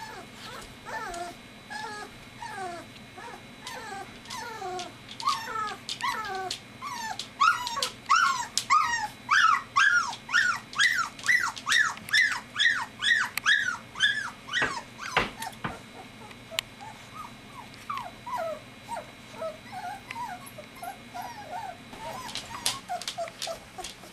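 Three-week-old golden retriever puppies whimpering and squealing in a stream of short, high cries that drop in pitch, about two a second at their loudest in the middle, fewer and fainter toward the end.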